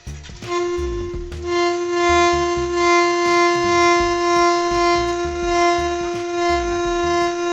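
A toy whistle fitted to a motorcycle's exhaust silencer, blown by the running engine's exhaust, sounding one steady, train-like whistle tone over the low rumble of the engine. The tone starts about half a second in and falters briefly about a second in.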